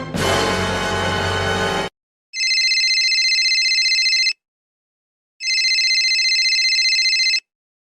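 A short musical chord that cuts off about two seconds in, then a telephone ringing twice, each ring a steady warbling tone lasting about two seconds with a second's pause between.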